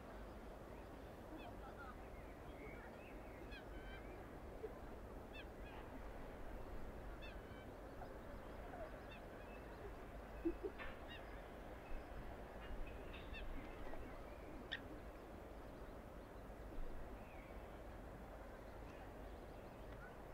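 Quiet wetland ambience: a steady low hum of distant city sound under scattered small-bird chirps, with a few short honking waterfowl calls, the loudest about halfway through.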